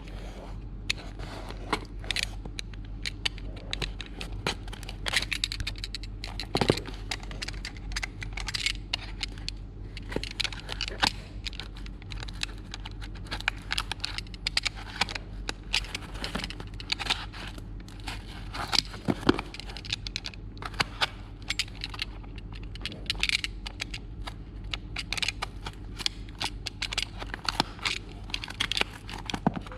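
A package being opened by hand: irregular crackling, tearing and scraping of packaging, with a steady low hum underneath.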